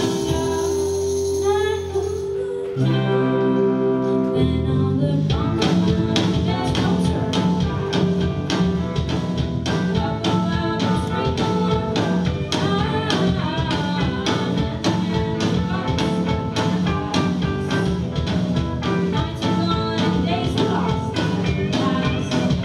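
Live band playing a song with electric guitars, bass and percussion. Held chords for the first few seconds, then a steady beat comes in about five seconds in, with singing over the band.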